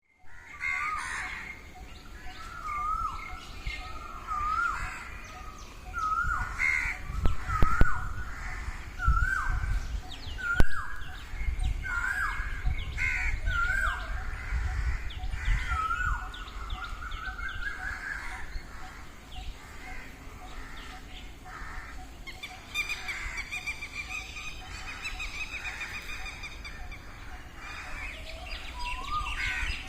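Peacocks calling: a long series of repeated loud, hooked calls about a second apart, later giving way to other birds twittering. A low rumble and a few sharp knocks come in the middle.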